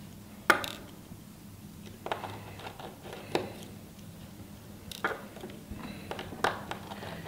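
Small, sharp clicks and taps of a precision screwdriver on the tiny metal screws and cover bracket of an iPhone 6 camera cover as it is unscrewed: about five clicks, roughly a second and a half apart, with faint scratching between.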